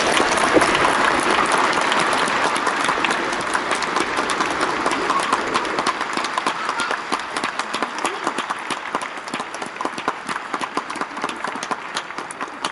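A stadium crowd applauding. The clapping is fullest at first and thins out gradually, until scattered single claps stand out near the end.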